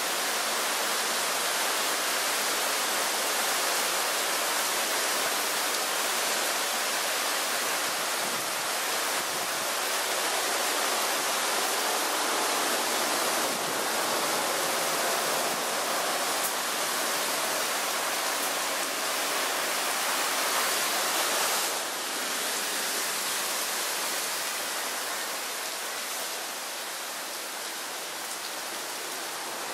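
Heavy typhoon rain pouring onto a flooded road: a loud, steady hiss of rain on pavement and standing water, with vehicles splashing through the floodwater. The downpour eases slightly about two-thirds of the way through.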